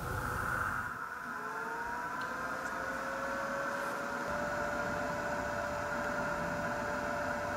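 Leister Hotwind System hot-air blower running: a steady rush of air with a fan whine that rises in pitch from about a second and a half in, then holds steady.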